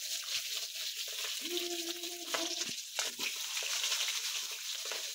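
Potatoes sizzling as they fry in hot oil in a pan, a steady hiss, with a few light clicks about halfway through.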